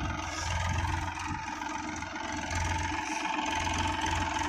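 Massey Ferguson 245 DI tractor's three-cylinder diesel engine running steadily under load as it pulls a trolley heavily loaded with green maize fodder.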